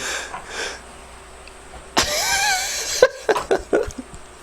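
A man grunting with effort for about a second, a strained sound that wavers in pitch, while pumping a ring stretcher by hand; a few clicks follow.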